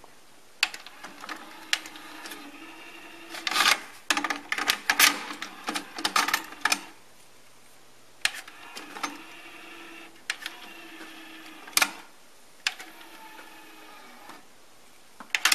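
Technics RS-TR170 double cassette deck's mechanisms clicking and whirring as its front-panel buttons are pressed. There are several short mechanical whirs of a second or two, each set off by sharp clicks.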